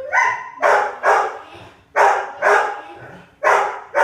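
A dog barking repeatedly, loud sharp barks coming in pairs about half a second apart, three pairs in all.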